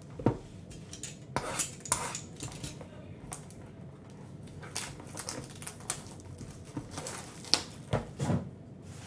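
Cardboard trading card boxes and packs being handled on a mat: a run of light knocks, taps and rustles, with the sharpest knocks just after the start and again near the end.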